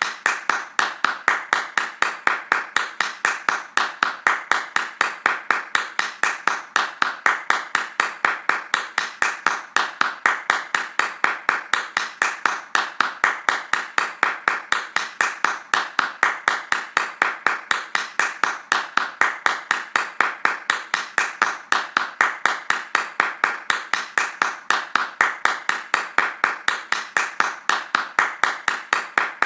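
Fast hand clapping in a steady, even rhythm of about four claps a second.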